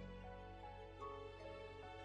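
Soft background music: a slow melody of single notes over a held low chord.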